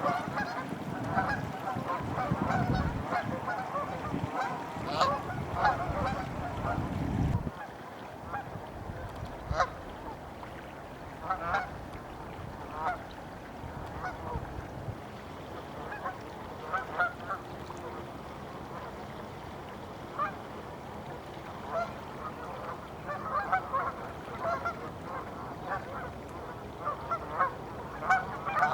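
A large flock of Canada geese honking, many short calls overlapping. A low rumble sits under the calls for the first seven seconds or so and then cuts off abruptly.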